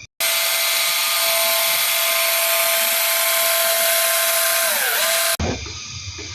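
Small cordless battery chainsaw running with a steady electric-motor whine. About five seconds in the pitch sags and recovers as the motor slows under load, then the sound cuts off abruptly.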